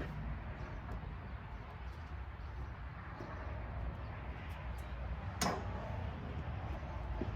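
Hands working small mounting hardware, with faint ticks and one sharp click about five and a half seconds in, over a steady low rumble.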